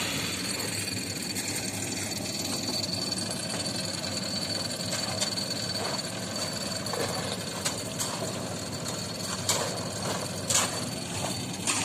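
Construction machinery engine running steadily: a constant rumble with a thin high whine over it, and a few sharp clanks in the second half.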